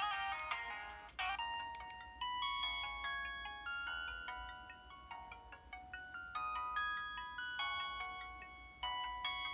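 Samsung Anycall SCH-W200 built-in ringtones: a busy electronic melody breaks off about a second in, and a slower tune of separate bell-like mallet notes, each ringing away, follows.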